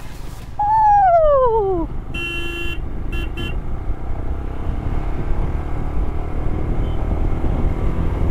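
A loud tone sliding steeply downward about half a second in. Then a vehicle horn sounds one longer toot and two quick short ones, over the steady low rumble of a motorcycle running on the road.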